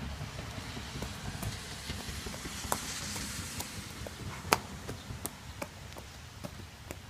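Rain falling as a steady hiss, with irregular sharp taps of drops hitting nearby surfaces; one tap about four and a half seconds in is the loudest.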